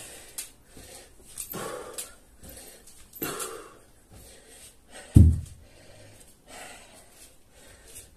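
A man breathing hard in loud, rasping breaths, winded from a set of burpees and kettlebell swings. A single heavy low thud about five seconds in.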